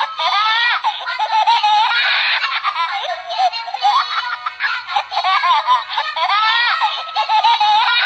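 Toy baby doll's electronic voice playing recorded, high-pitched baby laughter and sing-song giggling through a small speaker, thin with no low end.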